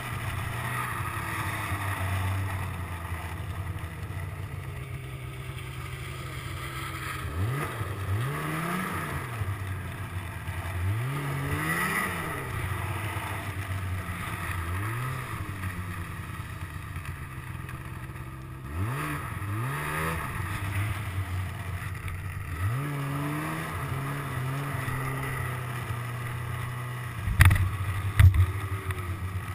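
2005 Ski-Doo GSX 600's two-stroke twin engine running steadily. From about seven seconds in it is revved up and let off again and again, every three to four seconds. Near the end there are two sharp knocks, the loudest sounds.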